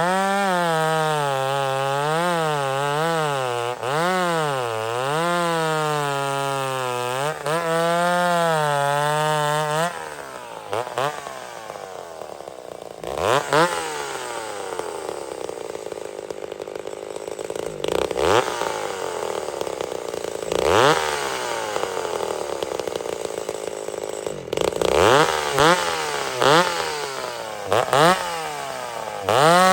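Vintage two-stroke chainsaw, about 50 years old, running under load with its engine pitch wavering up and down as it cuts. About ten seconds in it drops to a lower level, with the engine revved in short rising bursts several times, then comes back up to a steady pitch near the end.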